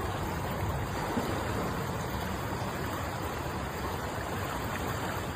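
Floodwater rushing steadily over a flooded-out road.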